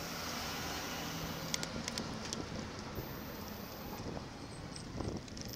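Wind rushing over a bike-mounted camera's microphone while cycling, with road rumble and a few short sharp clicks between about one and a half and two and a half seconds in.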